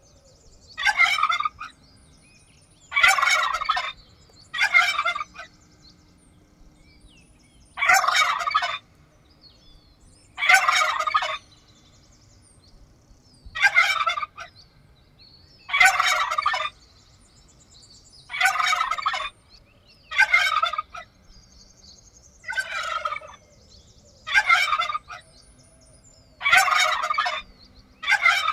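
Turkey gobbling: about a dozen rattling gobbles, each under a second long, repeated every one and a half to three seconds with short pauses between them.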